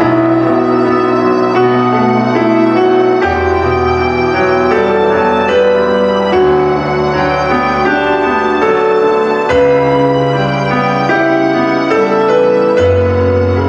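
Instrumental interlude of a song on keyboard: held chords over a bass note that changes about every three seconds, with no singing.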